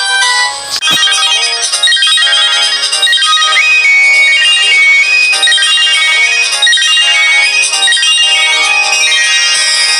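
A melodic phone ringtone tune of short, stepping notes plays; just under a second in there is a brief break and a click before a new tune starts.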